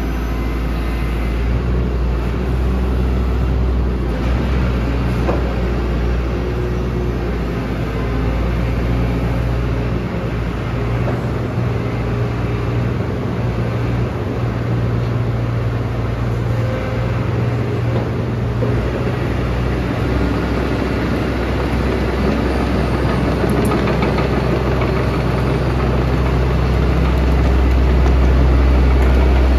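Hitachi ZX135US tracked excavator's diesel engine running steadily with a low, even hum, getting slightly louder near the end.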